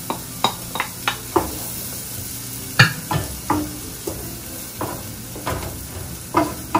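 Diced onion sizzling in melted butter in a pot, with a wooden spoon stirring it and knocking against the pot again and again; the sharpest knock comes a little under three seconds in.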